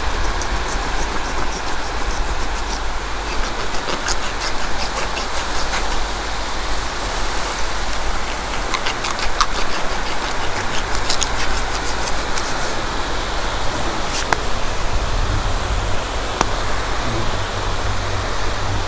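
Steady rush of wind buffeting the microphone over beach surf, with scattered sharp clicks and crunches as a knife cuts through a jack crevalle's skin and bones.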